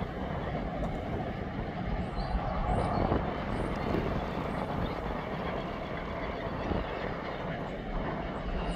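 Loaded log wagons of a freight train rolling past: a steady rumble of wheels on rail.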